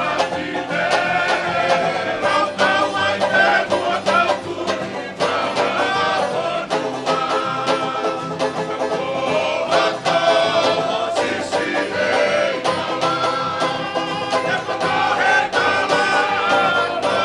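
Live Tongan string band playing a tau'olunga song: a group singing over steadily strummed acoustic guitars.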